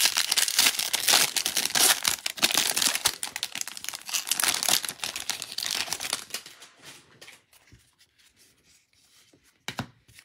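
A foil-wrapped 2021 Bowman Draft jumbo trading-card pack being torn open, its wrapper crackling and crinkling for about five seconds. The noise then dies down to quiet handling of the card stack, with one short tap near the end.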